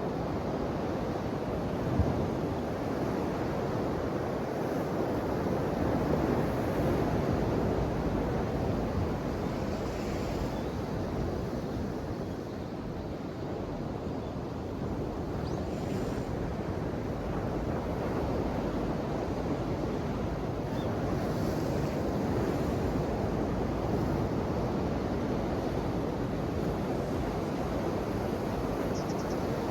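Ocean waves washing ashore in a continuous surf hiss that slowly swells and eases, with one short sharp knock about two seconds in.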